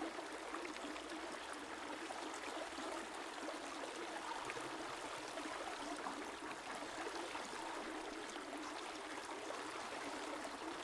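Steady river water flowing in a gentle, even rush.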